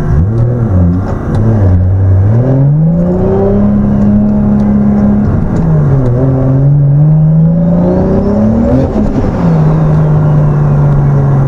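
Boosted 2JZ inline-six of a Lexus SC300 accelerating through the gears, heard from inside the car. The engine note climbs, drops at a shift about five seconds in, climbs again, drops at a second shift about nine seconds in, then holds steady.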